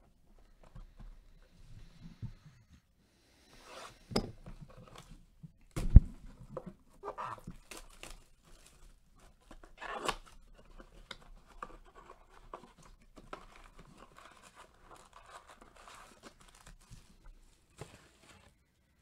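A 2018-19 Panini Court Kings blaster box of basketball cards being torn open and its packs pulled out, with irregular tearing and rustling of cardboard and wrapping. A sharp knock about six seconds in is the loudest sound.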